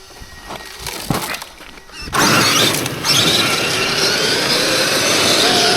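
Traxxas X-Maxx 8S RC monster truck taking off: a sudden loud rush of tyre and drivetrain noise with a faint rising electric-motor whine starts about two seconds in and carries on for about four seconds.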